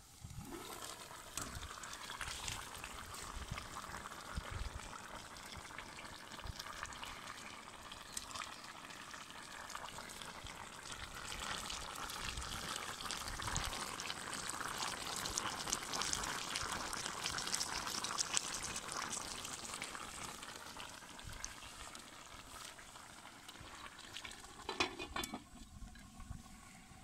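Beef and potato stew sizzling and bubbling in an uncovered kazan after long slow cooking: a steady hiss with many small pops, louder in the middle. Near the end a few sharp knocks as the lid goes back on.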